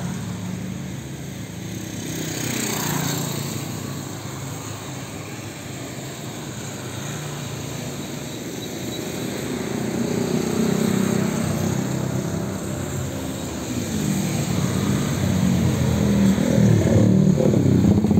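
Road traffic: car and motorbike engines passing one after another, each swelling and fading as it goes by. The loudest pass comes near the end.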